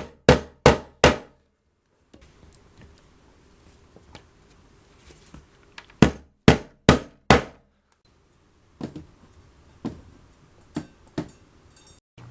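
Hammer blows driving M6 pronged T-nuts into drilled holes: a run of four sharp strikes about a third of a second apart, another run of four about six seconds in, then a few lighter taps near the end.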